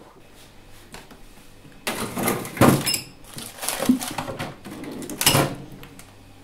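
A plastic freezer drawer is pulled open and rummaged through. It makes a run of scraping knocks and rustling of frozen packets, the loudest about two and a half seconds in, after a quiet start with a faint low hum.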